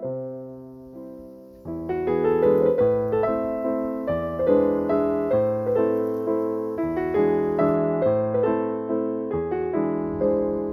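Background piano music: a soft passage of sustained notes that fills out into steady flowing chords about two seconds in.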